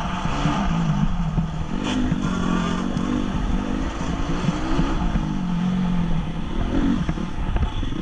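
A 2014 Honda CRF250's single-cylinder four-stroke engine at race pace, revving up and dropping back again and again as the throttle is opened and shut. It is heard from a helmet-mounted camera, with a heavy low rumble of wind and track noise under it. A brief clatter comes about two seconds in.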